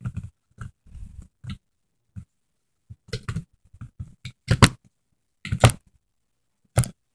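Hands handling a plastic rubber-band loom and its bands: scattered short clicks and knocks, with a few louder thumps about halfway through and near the end.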